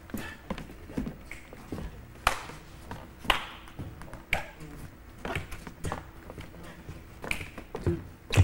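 Sharp taps from a dancer's steps and stomps on a stage floor, the loudest landing about once a second in a steady beat, with lighter scuffs and ticks between and no music.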